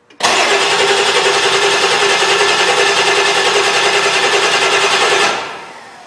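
Ford 7.3 Power Stroke diesel V8 cranking on its starter for about five seconds with an even pulsing rhythm, never catching. The starter then cuts off and the sound winds down. The engine cranks but won't start.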